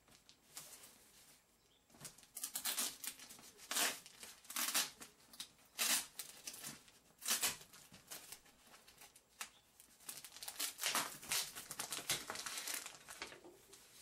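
Clear plastic wrap on a cardboard shipping box crinkling and rustling in irregular bursts as the box is handled.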